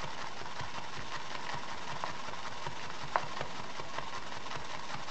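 Shaving brush whipping lather in a ceramic shaving scuttle: a steady wet swishing, dense with fine crackles and one sharper click about three seconds in. The lather is being worked further to make it creamier, and its sound tells how far it has come.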